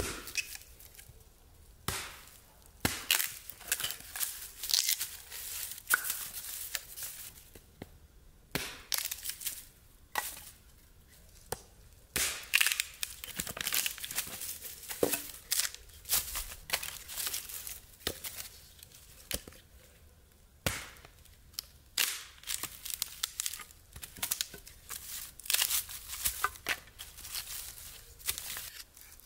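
A hatchet chopping and splitting short wooden rounds into thin pieces of kindling. It gives sharp strikes at irregular intervals throughout, with the crack and splintering of wood as it splits.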